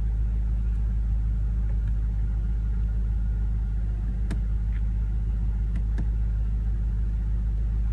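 Steady low idle drone of the BMW M5's 4.4-litre twin-turbo V8, heard from inside the cabin. A few soft clicks of the iDrive controller knob come through it, about four and six seconds in.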